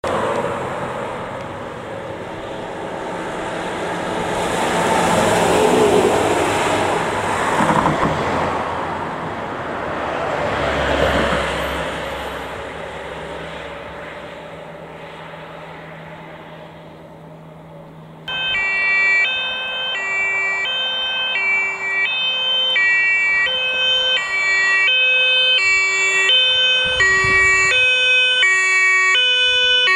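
Road and engine noise of a fire engine driving past, rising and falling twice. About two-thirds of the way in, after a cut, a German two-tone emergency siren (Martinshorn) on a Mercedes Vito fire brigade command vehicle sounds, alternating between two pitches and growing slightly louder as the vehicle approaches.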